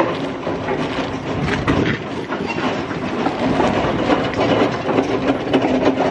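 Wire shopping trolley rattling steadily as it is pushed across asphalt.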